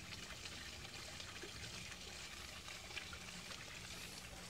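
Faint, steady trickling of water in a muddy puddle, with scattered small ticks.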